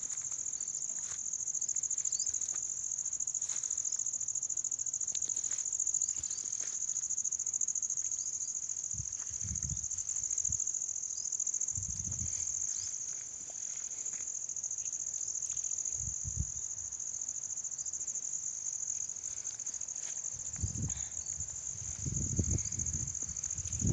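Steady high-pitched drone of insects that does not let up. Low thumps from the phone being handled come now and then, more often near the end.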